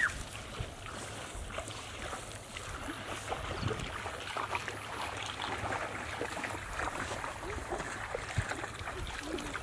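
Water sloshing and splashing in a shallow muddy canal as people wade and grope for fish by hand, in an irregular outdoor wash of sound.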